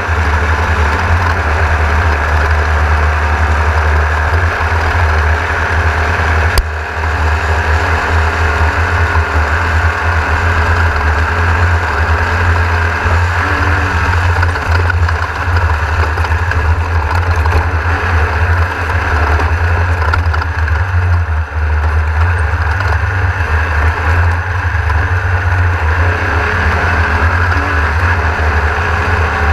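Air-cooled VW 1600 engine of a Class 1600 off-road race buggy running at race speed, heard from inside the car as a loud, steady low rumble with rattle and road noise. A single sharp knock about six and a half seconds in.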